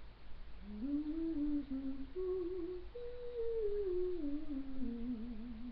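A woman humming a slow wordless tune, starting about a second in, gliding between held notes and ending on a wavering note.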